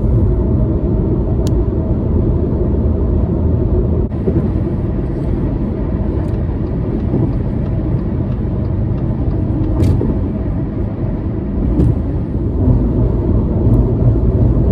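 Car driving at road speed: steady low rumble of tyre, road and engine noise, with a few faint clicks.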